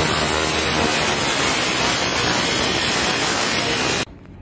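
Angle grinder cutting through the metal sheet of a roof sandwich panel: a loud, steady grinding noise that cuts off abruptly near the end.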